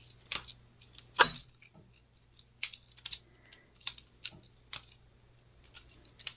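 Boker Plus balisong butterfly knife being flipped: its handles and blade clicking against each other in a run of sharp, irregular clicks, with one louder clack about a second in.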